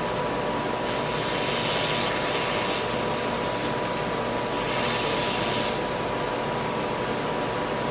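Glass laser drilling machine running with a steady hiss and a thin high tone while its focus is being set. Louder hissing swells up twice, for about two seconds and then about one second.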